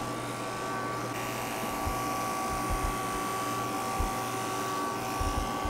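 Corded electric pet grooming clipper running with a steady hum as its blade shears through a Persian cat's coat.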